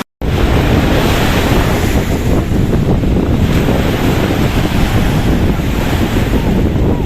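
Wind buffeting the microphone over lake water, a steady dense rumble with no distinct tones, after a split-second dropout at the very start.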